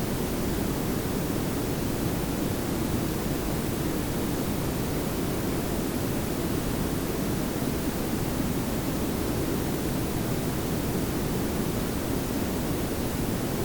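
Layered pink and brown noise: a steady, smooth hiss over a low rumble, with no change in level.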